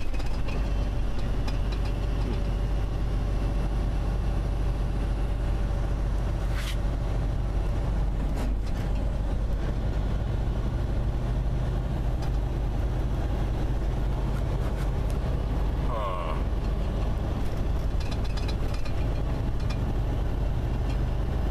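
Steady engine drone and road noise heard from inside a vehicle's cab while driving through a highway tunnel.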